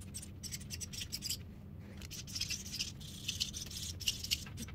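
Felt-tip marker writing on white cardboard: a run of short, irregular scratchy strokes as the letters are drawn, over a low steady hum.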